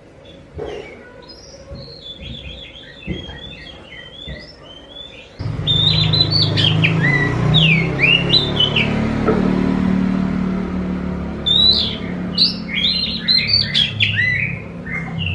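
Oriental magpie-robin (kacer) singing rapid chirps and whistled phrases in three spells, with a pause of about two seconds in the middle. About five seconds in, a steady low rumble starts suddenly under the song.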